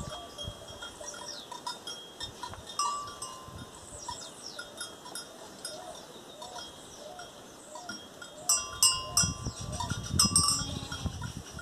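Sheep and goat pen sounds: bell-like clinks a few times and many short high chirps, with louder knocks and rustling starting about three seconds before the end.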